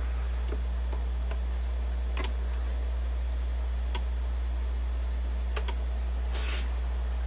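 Steady low electrical hum from the stereo system the Technics SL-D30 turntable is hooked up to, with scattered light clicks from the turntable and tonearm. Near the end there is a short scratchy burst as the tonearm comes down over the spinning record.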